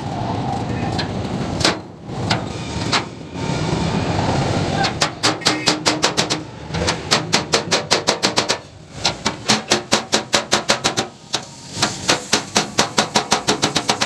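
Hammer striking the sheet-steel body of a concrete mixer part in quick, even blows, about five a second, in runs of a few seconds with short pauses. Before the hammering starts, about five seconds in, there are only a few scattered knocks.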